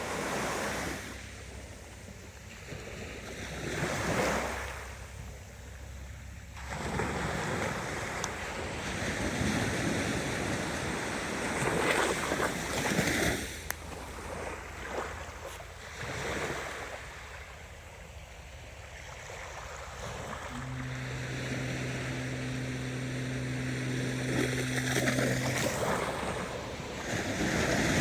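Ocean waves washing in and drawing back, the surf noise swelling and ebbing every few seconds. About two-thirds of the way through, a low steady hum sounds for about five seconds, then stops.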